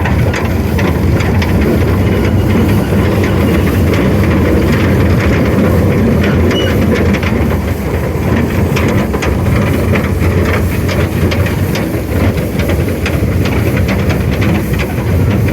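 Small forest railway train running, its engine droning steadily while the wheels click and clatter on the track.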